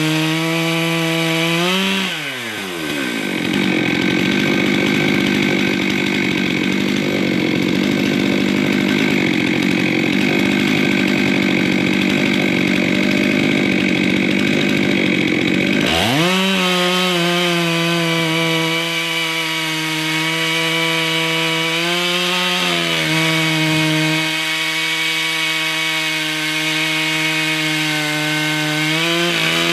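Two-stroke chainsaw on a chainsaw mill, fitted with a ripping chain, running hard under load as it rips a slab lengthwise from a log. Its pitch drops steeply about two seconds in and climbs back near the middle, then holds high with brief small dips.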